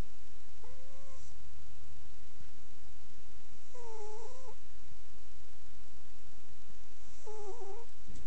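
Calico cat snoring in her sleep: three short, pitched, wavering snores about three seconds apart, one with each breath.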